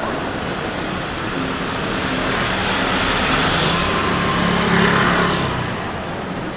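A road vehicle passing close by on a busy city street. Its engine and tyre noise swells, peaks about three to five seconds in, then fades away over the steady traffic hum.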